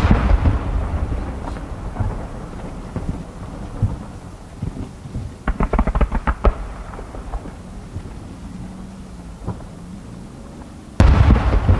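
Distant aerial firework shells bursting: a deep boom right at the start with a long rolling echo, a quick run of sharp cracks about halfway through, and another loud boom near the end.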